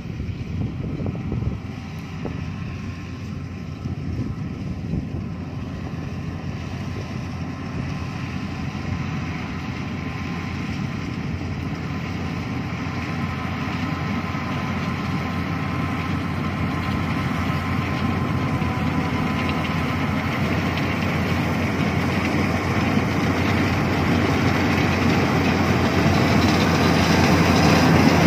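Yanmar AW82V combine harvester's diesel engine and threshing machinery running steadily as it cuts rice, growing gradually louder as the machine draws near.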